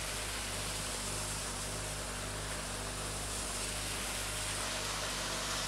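Steady rain falling, an even hiss, with a low hum underneath.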